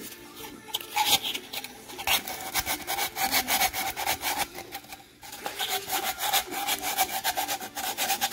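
Sandpaper rubbing by hand along the routed edges of a 1.5-inch PVC pipe: quick, repeated back-and-forth scraping strokes that begin about a second in and pause briefly a little past halfway. The sanding knocks down the sharp edges left by the router's chamfer and slot cuts.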